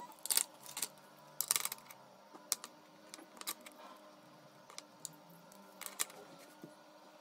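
Pens and highlighters set down on a desk and papers handled: a scatter of light clicks and taps, several of them sharper, over a faint steady hum.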